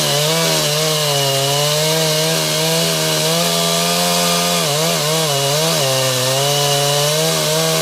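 Two-stroke chainsaw running at full throttle and cutting into a tree trunk, its engine note dipping briefly under load about five seconds in and again near the end.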